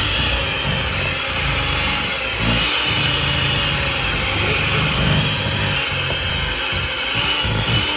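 Electric hand mixer running steadily, its beaters churning cream cheese frosting in a bowl: a continuous motor whine over a low rumble.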